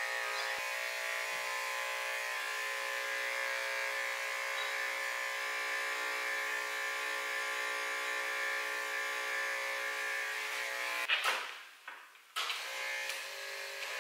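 Electric dog-grooming clippers fitted with a #10 blade running with a steady hum while trimming a goldendoodle's paw pads and face. The hum cuts out suddenly about 11 seconds in and comes back a second later, slightly quieter.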